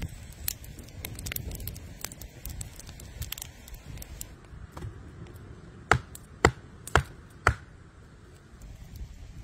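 Wood fire crackling beneath pork roasting on a stick frame, with many small pops, then four loud sharp snaps in quick succession about six seconds in.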